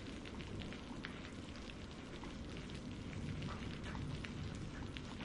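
Steady rain falling, with many single drops ticking through it.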